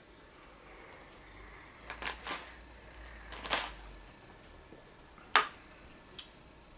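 Small clay teaware knocking on a bamboo tea tray: a few light clicks about two and three and a half seconds in, then the loudest, sharpest knock about five and a half seconds in as a small clay tea cup is set down on the tray, and one more small click just after.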